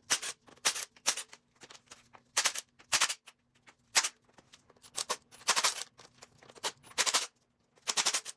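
A power tool run in about a dozen short, loud rattling bursts at uneven intervals, spinning out the small bolts on an engine.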